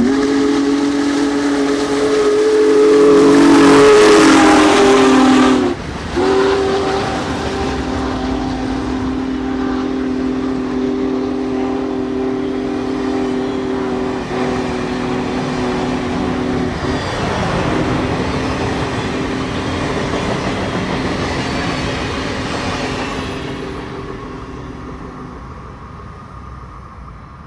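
Union Pacific Big Boy 4014 steam locomotive going past while sounding its chime whistle in long blasts with short breaks. The chord drops in pitch as the engine passes, then carries on over the rolling passenger cars and fades away near the end.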